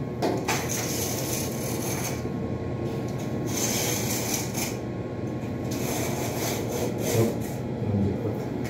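Scraping and rubbing of a large wall tile being worked into place by hand, in two hissy stretches of a second or so, over a steady low hum.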